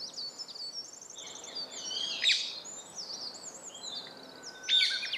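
Several wild songbirds singing and calling together: high chirps and rapid trills overlapping. A louder burst of song comes a little past two seconds in and again near the end.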